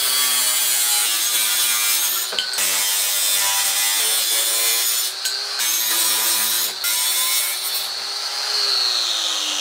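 Angle grinder cutting through sheet steel with a cutting disc: a steady motor whine under a loud, harsh hiss, dipping briefly two or three times as the disc leaves the cut. Near the end the whine falls in pitch as the grinder winds down.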